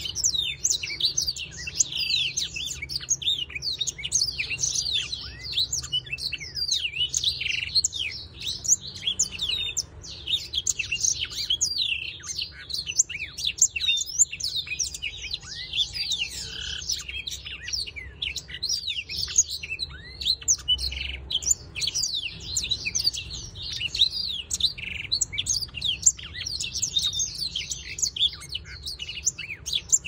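Black-throated canary singing: a long, unbroken run of fast, high twittering chirps and trills.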